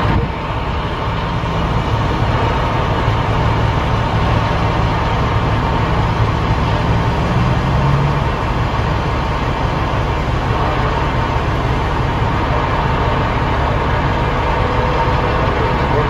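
Heavy diesel truck engine running steadily, heard from inside the cab as a continuous low hum, with a brief rise in pitch about seven to eight seconds in.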